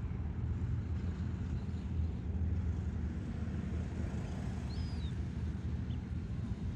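Steady outdoor low rumble with a faint hiss. A small bird gives a couple of short, high chirps about five seconds in.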